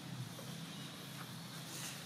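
Quiet outdoor background: a steady low hum and hiss, with a couple of faint light ticks.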